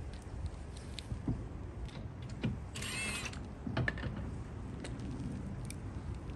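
A cordless impact gun whirs briefly about three seconds in, spinning off a lug nut on the rear wheel, with a few light clicks and knocks of sockets and nuts around it.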